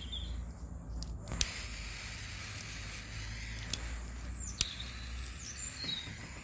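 Gas torch burning with a steady low rumble and light hiss, while it melts scrap solder dross. A few sharp clicks and faint bird chirps are heard over it.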